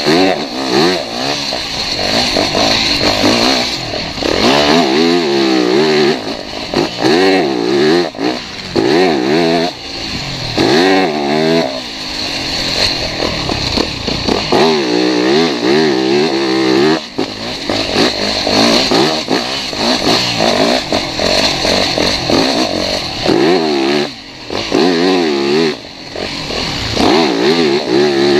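Dirt bike engine being ridden hard around a motocross track, its pitch rising and falling over and over as the rider works the throttle through the turns, with short dips every few seconds when the throttle is closed.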